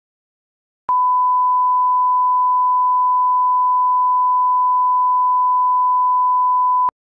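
A steady 1 kHz reference test tone, the line-up tone that goes with television colour bars for setting audio levels. It starts abruptly about a second in and cuts off sharply some six seconds later, with a click at each end.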